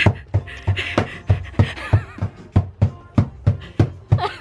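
A floor drum with a skin head beaten with wooden mallets in a steady beat, about three strikes a second, each a low thump.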